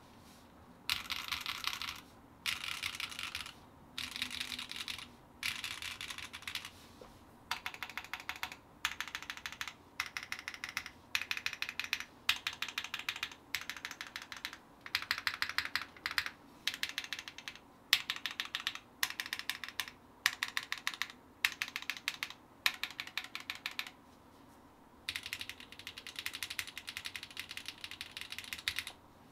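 Typing on a KMG B60 60% mechanical keyboard with Clackbits switches on an aluminium plate and ABS GMK Masterpiece keycaps: rapid keystroke clacks in short bursts of about a second each, broken by brief pauses.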